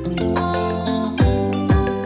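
Background music with sustained notes and two deep beats in the second half.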